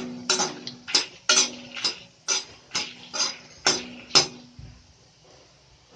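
A metal ladle knocking and scraping against a kadai while dry-roasting dried red chillies and coriander seeds, about two or three ringing strokes a second, stopping a little past four seconds in.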